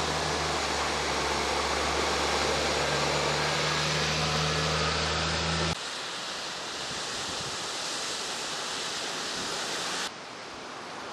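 An armoured truck driving through floodwater: a loud rush of spray over the steady low hum of its engine, cutting off abruptly about six seconds in. After that, a steady rushing hiss of outdoor water and wind, dropping to a quieter level near the end.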